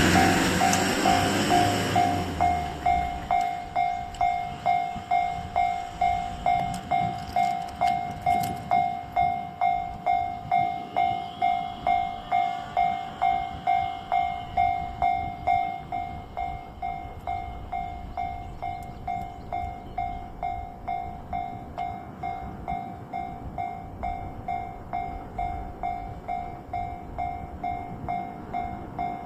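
Japanese railway level-crossing alarm ringing: an electronic bell striking one high tone over and over at a quick, even rhythm, warning of an approaching freight train. For about the first two seconds a louder rushing rumble sits under it and then fades out. The bell grows quieter about halfway through.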